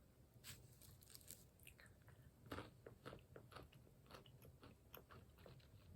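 Faint chewing and crunching of flavoured almonds: a scatter of small, irregular crunches, the loudest about two and a half seconds in.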